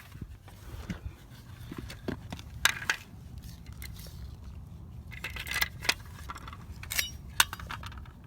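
Scattered clicks, clacks and short scrapes of hands working the lock cylinder out of a Honda Civic exterior door handle, with a few sharp clicks in the second half.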